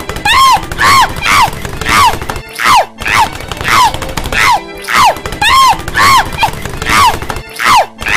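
Cartoon character's voice crying out over and over in short yelps that fall in pitch, about two a second, as she tumbles down a staircase, with low thumps beneath.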